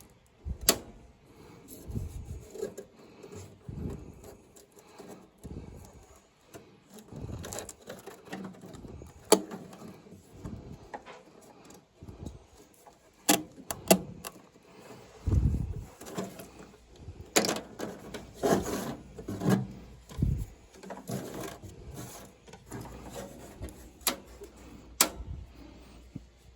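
Work noises from fitting a replacement furnace draft inducer by hand: irregular clicks, taps and knocks of metal parts and screws, with stretches of scraping and rubbing.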